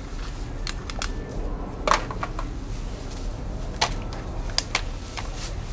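Plastic garbage bags crinkling as they are rummaged through by hand: scattered sharp crackles and clicks, the loudest about two seconds in, over a steady low hum.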